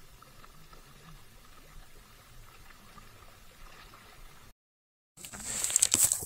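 Faint small waves lapping against rocky shoreline riprap. Near the end, after a sudden break, loud rustling and knocking of handling close to the microphone.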